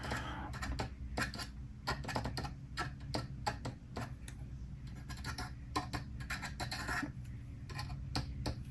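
Light, irregular clicks and taps of small plastic model-kit parts and a liquid-cement applicator being handled and set down on a workbench, over a low steady hum.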